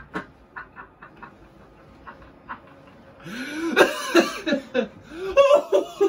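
A man laughing hard: quiet breathy pulses at first, then, about three seconds in, loud laughter in high rising-and-falling whoops.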